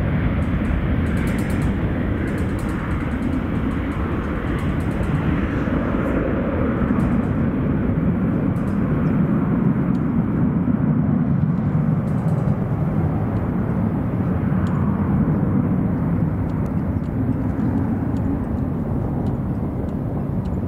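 A departing Boeing 737-800's CFM56 jet engines, heard as a steady low rumble.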